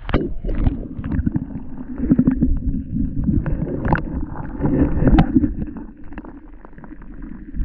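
Muffled underwater sound picked up by a submerged GoPro: a low rumble of moving water, with scattered knocks and taps as a hand holds a crappie in front of the camera and lets it go.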